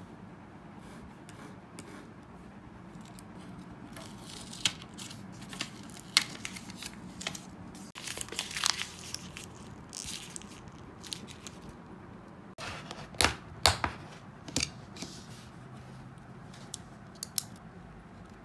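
A small piece of paper crumpled and crushed by hand, in irregular bursts of sharp crackles, loudest near the middle.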